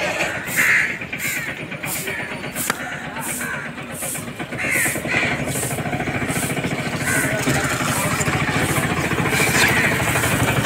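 Large curved knife sawing through catla fish steaks on a wooden block, with regular scraping strokes about twice a second. From about halfway an engine runs steadily underneath, growing slightly louder.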